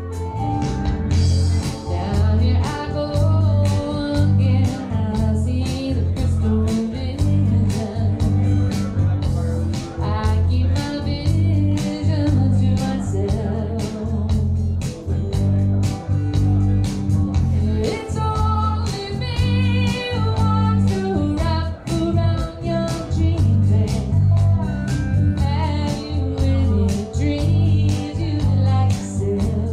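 A live cover song by a duo: a woman singing over guitar with a bass guitar playing strong, sustained low notes.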